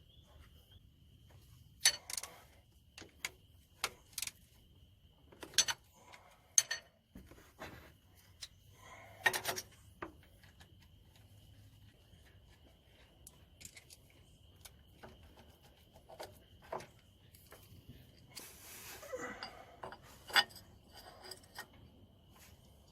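Scattered metallic clinks and knocks of hand tools and loose bolts against engine parts, several ringing briefly, with a short rasping scrape near the end.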